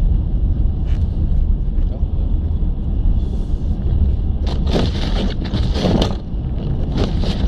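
Steady low rumble of a car's engine and road noise heard inside the cabin, with a few louder rushing swells past the middle.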